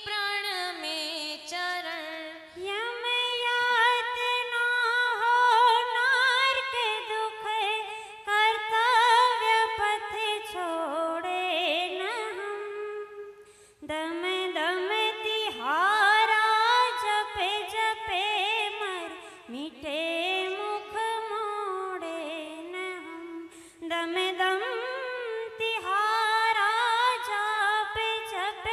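A single female voice singing a devotional hymn in long, ornamented, gliding phrases, pausing for breath about halfway through.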